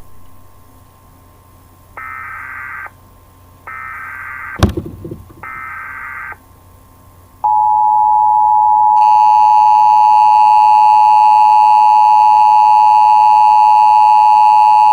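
Emergency Alert System signal: three short bursts of warbling digital header tones, with a low thump during the second burst, then the long steady attention tone starting about seven seconds in. The tone turns louder and harsher about a second and a half later.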